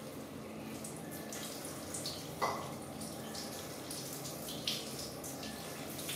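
Water spraying from a handheld shower head onto a baby monkey's wet fur and a plastic toilet lid, a steady hissing patter with dripping. A short, sharper sound stands out about two and a half seconds in.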